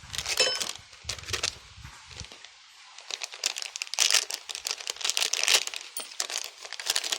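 Paper or plastic crinkling and rustling as it is handled, in dense irregular crackles, with a few dull handling knocks in the first couple of seconds.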